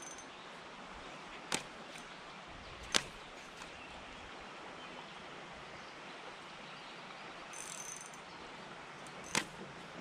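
Casting with a spinning rod and reel over a faint steady outdoor hiss, broken by three sharp clicks of reel and rod handling, the loudest about three seconds in.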